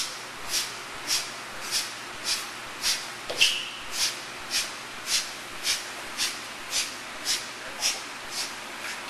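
Sharp, forceful breaths through the nose in a steady rhythm, a little under two a second, from bhastrika (bellows breath) pranayama, over a steady hiss; the puffs grow weaker near the end.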